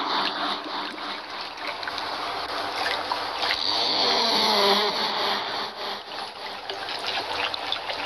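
Water trickling steadily, with a couple of faint, short wavering tones partway through.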